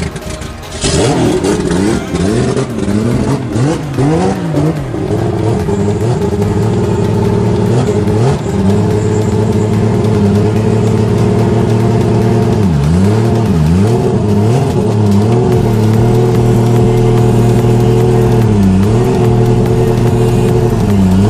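Car engine revved in several quick rises and falls of pitch, then running steadily at a raised idle, the pitch dipping briefly and coming back up a few times.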